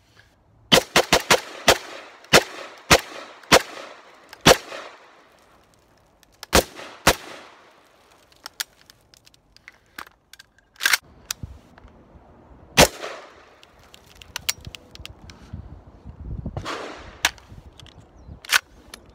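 Radical Firearms AR-15 pistol firing: a fast string of about nine shots in the first four and a half seconds, then single shots a second or more apart, each followed by a short echo.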